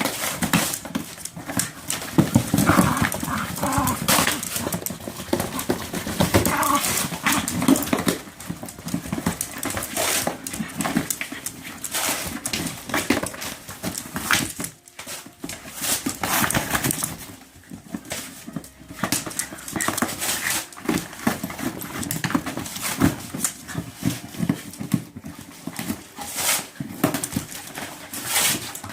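A dog shredding something, with irregular tearing, ripping and rustling noises from its mouth and paws as it works at it.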